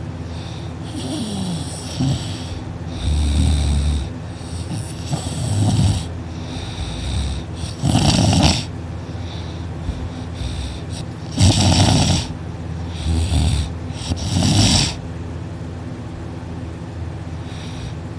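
A sleeping person snoring loudly, a string of heavy snores every two to three seconds, the loudest about halfway through. The snores die down for the last few seconds.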